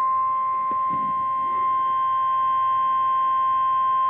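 NOAA Weather Radio warning alarm tone: one steady, unbroken single-pitched tone sounding for the whole stretch, the alert signal that announces a severe thunderstorm warning broadcast.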